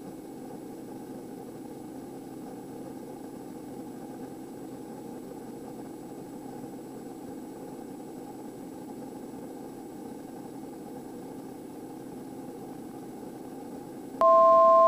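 Quest Kodiak 100's PT6A turboprop engine and propeller running steadily at reduced power on final approach, a constant drone. Near the end a loud two-tone electronic beep sounds for about a second.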